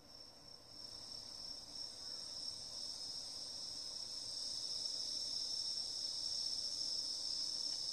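The opening of a music track playing from a CD on a Sony CDP-591 player: a steady, high shimmering sound fades in and grows louder.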